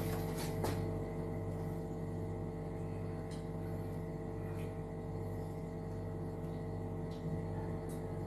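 A steady, even droning hum made of several held tones, with a few faint clicks scattered through it.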